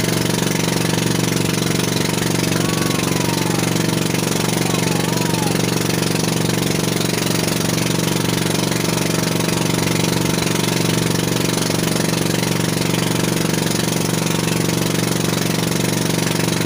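An outrigger fishing boat's engine running steadily while under way, a constant drone over a steady hiss of water and wind.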